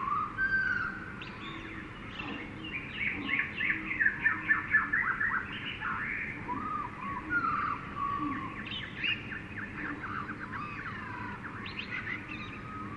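Jungle birds calling and singing together: several overlapping whistled calls and fast trills, busiest about three to five seconds in.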